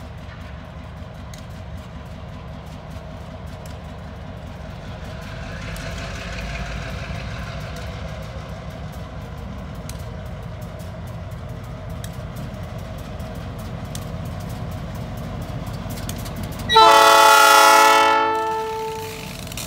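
Diesel locomotives running slowly toward the listener at switching speed, their engines a steady low rumble that grows a little louder. Near the end the lead locomotive sounds one horn blast of several notes together, about two seconds long, then fading.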